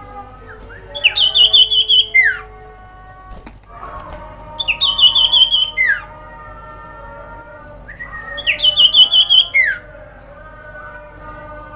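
Common iora (sirpu/cipoh) singing three fast, trilled phrases. Each phrase is a rapid run of repeated high notes lasting about a second and a half, ending in a falling slur. A fainter steady background of other tones lies underneath.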